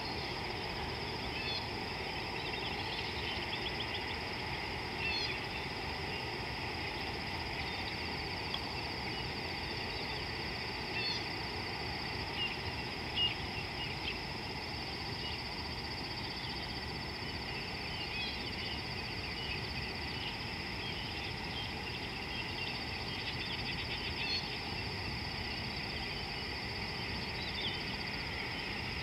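Outdoor bush ambience: a steady high-pitched drone runs throughout, with many short bird chirps scattered over it and a low, even rumble underneath.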